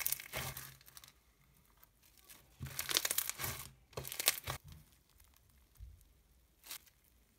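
Floam slime packed with foam beads crunching and crackling as it is pressed flat and stretched by hand, in three bursts; a soft crunch.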